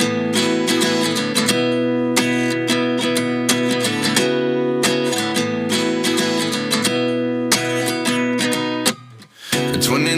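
Background music: an acoustic guitar strumming chords as a song's intro, with a brief dip about nine seconds in.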